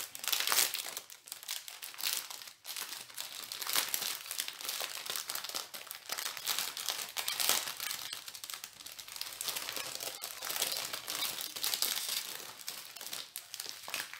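Plastic bags and wrapping crinkling as strips of small diamond-painting bead packets are handled, a continuous irregular rustling with many small crackles.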